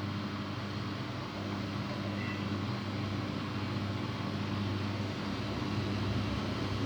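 Daewoo DWD-FT1013 front-loading washing machine in its spin cycle with an unbalanced load: a steady motor and drum hum that grows slightly louder toward the end.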